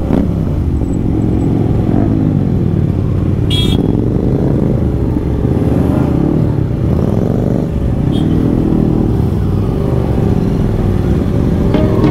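Motorcycle engines running as a group of sport bikes rolls along slowly. The engine note rises and falls every second or two with the throttle, and there are a couple of brief light clicks.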